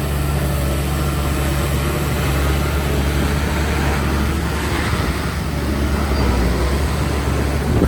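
Heavy diesel engine of construction machinery running steadily at a low, even pitch, with a rough noisy wash over the hum.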